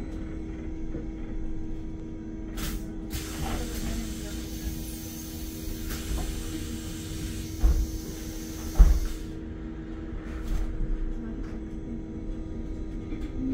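Electric city bus standing at a stop with a steady electrical hum. From about three seconds in there is a long hiss of compressed air lasting some six seconds, and two low thumps come near eight and nine seconds: the pneumatic doors working.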